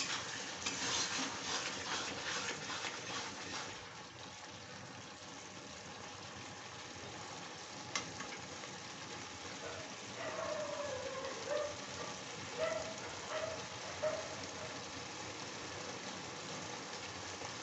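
Metal spatula stirring and scraping okra curry in a kadai for the first few seconds, then the steady hiss of the pan simmering on the gas stove, with a single sharp click about 8 seconds in and faint wavering tones between about 10 and 14 seconds.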